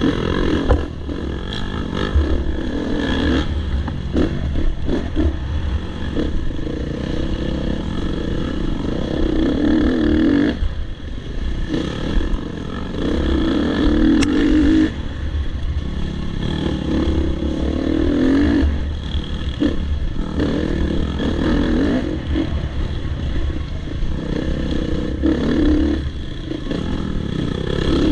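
Off-road dirt bike engine revving up and down as the throttle is opened and closed again and again, heard close up from the rider's helmet, with knocks and rattles from the bike over rough ground.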